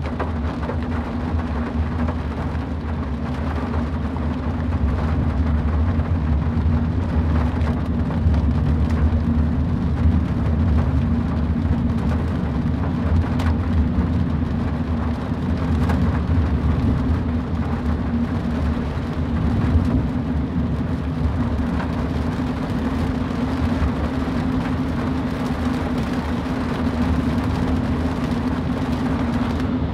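A car driving in the rain: a steady low rumble of engine and road with a constant hum, under the hiss of rain.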